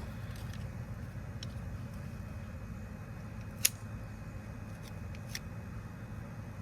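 A few light metal clicks and one sharp tick about three and a half seconds in, from a tool handled against the alternator's metal case while marking it for reassembly, over a steady low hum.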